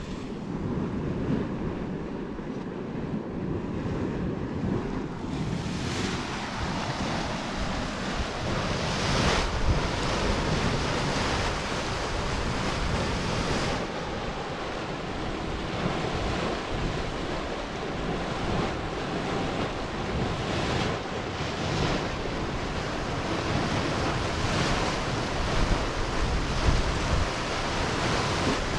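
Churning Caldron, a scalding but not boiling hot spring pool, churning and surging as gas rumbles up through vents and roils the water: a steady rushing, splashing noise that grows fuller about six seconds in, with wind on the microphone.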